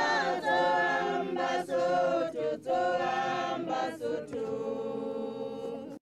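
A group of women singing unaccompanied in chorus, with short pauses between phrases. The song ends on a long held chord that cuts off suddenly near the end.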